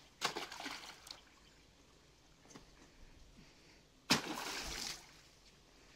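Two splashes as chunks of banana stem are thrown into a water-filled concrete tank: one just after the start and a louder one about four seconds in, each followed briefly by sloshing water.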